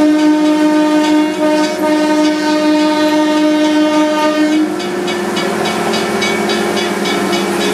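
A century-old locomotive's horn sounding one long steady chord that cuts off a little past halfway. Under it and after it runs a rapid, evenly repeating clanging.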